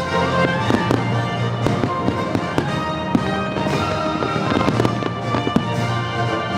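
Fireworks bursting in a rapid, irregular run of sharp bangs over the show's orchestral soundtrack music.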